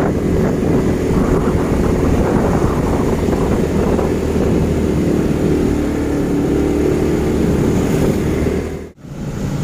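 Motorcycle engine running steadily as it rides along, with wind buffeting the microphone. The sound drops out abruptly for a moment near the end.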